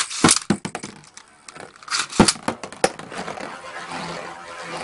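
Two Metal Fusion Beyblade spinning tops in a plastic stadium: a clatter of clicks as they come in, sharp clacks as their metal wheels strike each other about two seconds in, then a steady whirring as they spin across the stadium floor.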